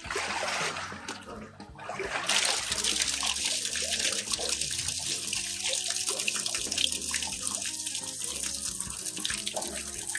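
Water pouring and splashing steadily, louder from about two seconds in, stopping abruptly at the end.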